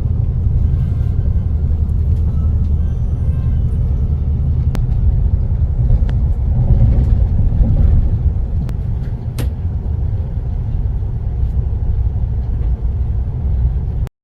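Steady low rumble of a moving vehicle, with a few sharp clicks.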